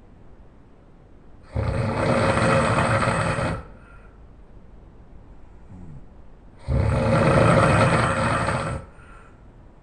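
A person snoring loudly: two long, rasping snores, each about two seconds, the second starting about five seconds after the first.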